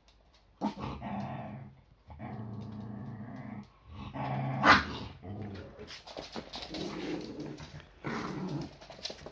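Small dogs, Yorkshire Terriers, play-growling in repeated rough bouts while tussling over a toy, with one sharp bark about halfway through.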